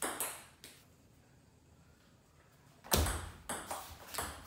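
Table tennis ball ticking off bats and table: a couple of lone ticks at the start, about two seconds of quiet, then a louder knock and a quick run of hits as a rally gets going.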